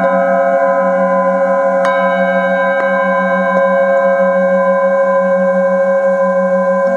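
Several metal singing bowls ringing together in steady, overlapping tones, with a low pulsing hum underneath. A bowl is struck sharply about two seconds in, with lighter strikes around it.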